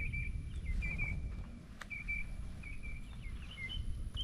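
A bird calling outdoors, short chirps repeated every half second or so, getting higher and quicker near the end, over a low rumble on the microphone.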